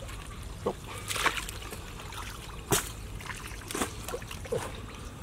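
Gloved hands splashing and sloshing in shallow muddy canal water while groping under a grassy bank for fish: a handful of short, separate splashes about a second apart.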